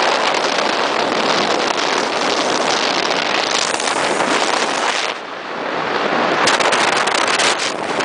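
Wind buffeting the microphone and water rushing past the hull of a speedboat under way on choppy open sea, dipping briefly about five seconds in.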